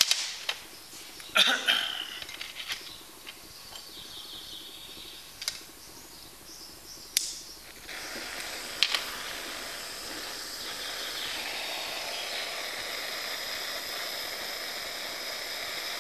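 A few sharp clicks and knocks, then from about eight seconds in a handheld butane-propane blowtorch burning with a steady hiss, its flame heating a stainless steel spoon from underneath for soldering.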